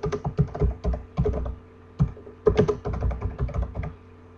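Typing on a computer keyboard: quick runs of key clicks, broken by a short pause about two seconds in, over a steady low hum.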